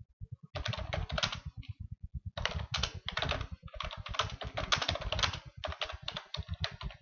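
Computer keyboard being typed on: quick runs of keystrokes in several bursts with short pauses between them.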